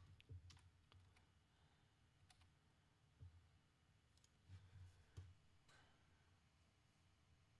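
Faint computer mouse clicks, several scattered over a few seconds, over near silence.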